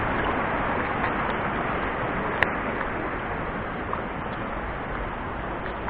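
Footsteps on a stony forest trail over a steady rushing noise, with a few faint ticks and one sharp click about two and a half seconds in.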